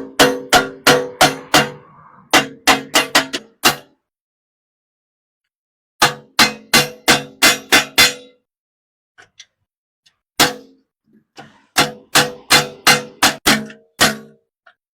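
Hammer striking an aluminium steamer pot in quick runs of ringing metal blows, about three a second, with a break of about two seconds after the first run and a few scattered light taps later. This is the tinsmith knocking the pot's rivets outward so that the steamer rack fits again.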